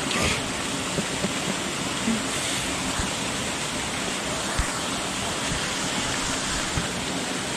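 Small creek waterfall pouring over rock, a steady rush of water.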